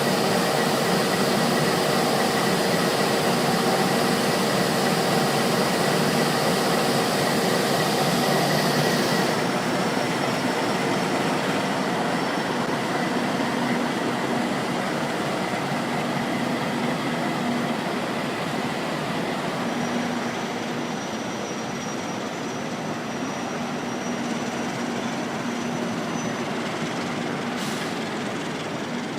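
Bima passenger train rolling out of the station, a steady rushing of wheels on rail that slowly fades as the train draws away.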